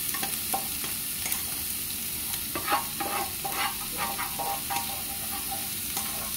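Chopped vegetables sizzling steadily in a frying pan over a gas flame. Over the sizzle comes a series of short scrapes and taps, as a plastic slotted spatula scrapes cooked quinoa out of a pot into the pan; they come thickest through the middle.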